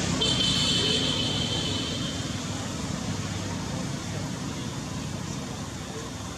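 Steady rumble and hiss like a passing motor vehicle, loudest about a second in and slowly fading, with a high steady whine for about two seconds near the start.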